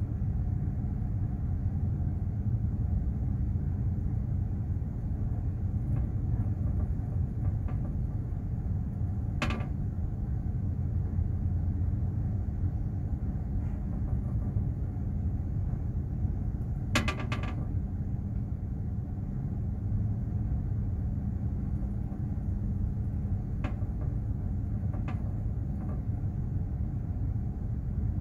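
Steady low rumble and hum aboard a container ship under way, with a few short clicks or knocks, including a quick cluster of them a little past halfway.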